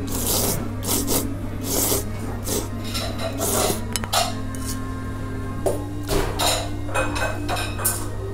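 Thick mazesoba noodles being slurped in a rapid string of short, wet sucks, with a sharp click about four seconds in, likely a chopstick against the bowl.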